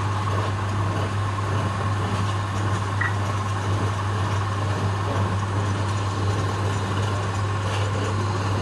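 Wood lathe running steadily with a spindle turning on it: a constant low electric-motor hum under the whir of the spinning machine.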